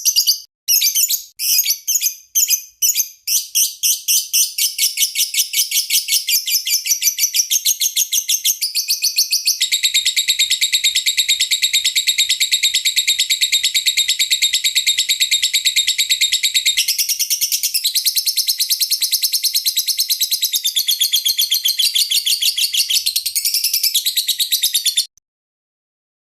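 Lovebird singing a long, loud chatter of rapid high chirps: a few separate bursts at first, then one fast unbroken trill that cuts off abruptly about a second before the end.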